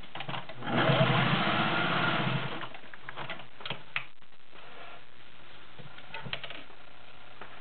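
Singer 500A Slant-O-Matic sewing machine running fast, sewing a straight stitch for about two seconds before stopping. A few light clicks follow.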